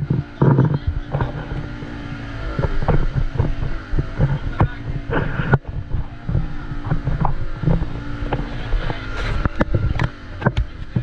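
Boat engine running steadily, with wind buffeting the microphone and irregular short knocks and thumps.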